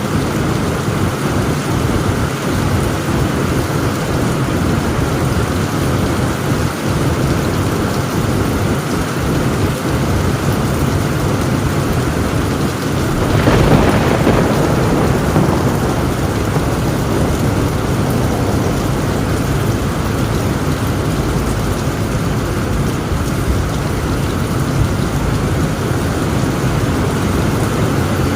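Heavy rain drumming steadily on a tin roof, with one thunderclap rumbling up about halfway through and fading over a few seconds.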